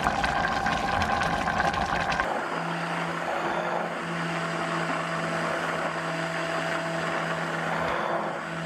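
Hand-held immersion blender running in a steel pot of cooked vegetables, puréeing them. After about two seconds of rougher noise, the motor settles into a steady, even hum.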